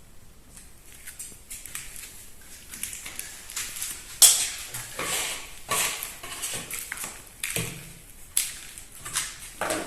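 Irregular knocks, clatters and short scrapes of hands-on masonry work, quiet at first and busier and louder from about four seconds in.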